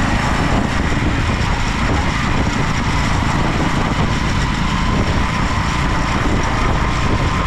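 Steady, loud rush of a vehicle on the move, engine and wind noise blended into one even roar, cut in and out abruptly.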